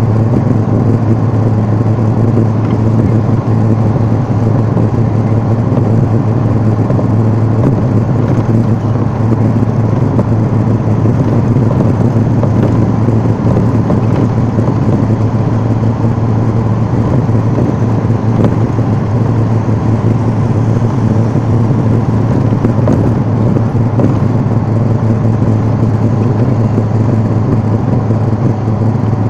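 Steady engine and road drone of a moving road vehicle heard from inside it, a constant low hum under even tyre and traffic noise, with no change in pace.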